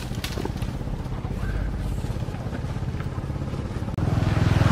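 An engine running steadily, with a low, pulsing hum; it gets louder about four seconds in.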